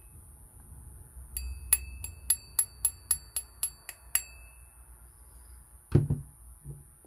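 A run of about eleven sharp metallic clicks, roughly four a second, from a Shimano Nexave C5000HG spinning reel being worked by hand, followed by a thump.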